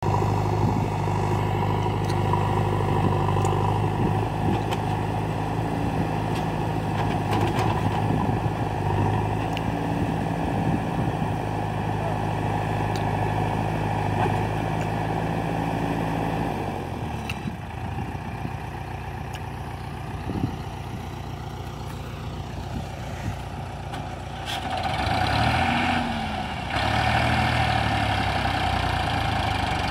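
Diesel engines of a Farmtrac 45 tractor and a JCB backhoe loader running steadily. A little past halfway the steady low engine note drops away and it goes quieter, then the engines rev up again in the last few seconds as the tractor begins to pull the loaded soil trolley.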